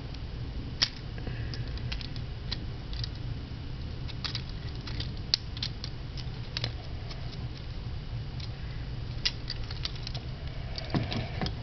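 Light plastic clicks and taps from a Transformers Nightbeat scout-size figure as its parts are moved and snapped into place by hand, scattered at irregular intervals with a few quick clusters, over a steady low hum.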